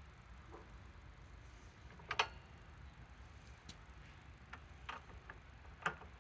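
A few sharp clicks: one louder click about two seconds in, then a scattered handful near the end.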